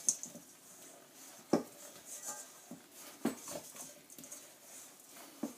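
Bread dough being mixed in a bowl: scattered knocks and light clatter of the bowl and utensil, with three sharper knocks spread out over a few seconds.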